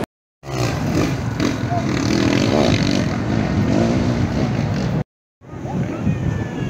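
Enduro motorcycle engines revving on a steep dirt hillside, mixed with the chatter of a large spectator crowd. The sound cuts to silence twice for a moment, near the start and about five seconds in.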